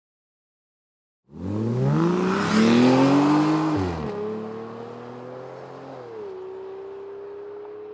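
A motor vehicle engine accelerating, starting about a second in: its pitch rises, drops sharply twice and climbs again, while the sound slowly fades.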